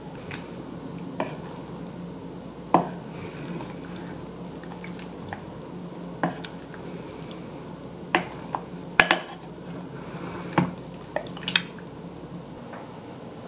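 A wooden spoon gently stirs a tender, freshly cooked chicken-and-eggplant stew in a rice cooker's nonstick inner pot. Scattered knocks and scrapes of the spoon against the pot stand out, the loudest about three seconds in and a cluster around nine seconds in, over a steady low hum.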